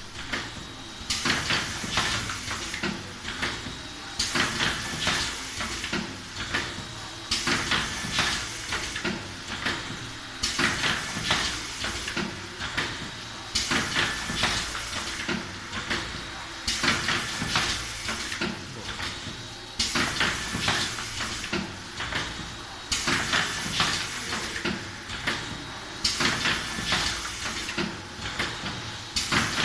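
Robocap 20 N capsule filling and sealing machine running, working through a cycle about every three seconds (about 20 capsules a minute). Each cycle starts with a sharp burst of hiss, followed by clicks and clacks from the indexing turntable and tooling.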